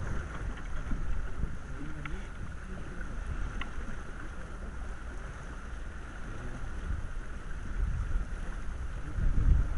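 Wind buffeting the microphone over the steady rush of water along the hull of a small sailing keelboat under way, with a few faint clicks from the boat's fittings. The low buffeting swells near the end.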